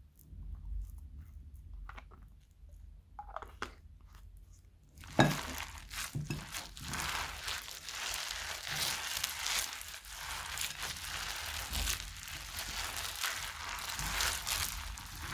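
Crunchy slime made with plastic bags and foam bricks being squeezed and worked by hand. A few faint clicks, then about five seconds in a sudden loud crunch, followed by continuous crackling and crinkling.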